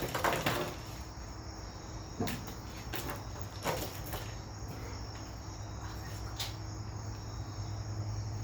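Crickets chirping steadily in the background, over a low steady hum, with a few short clicks and knocks of handling, the loudest at the very start.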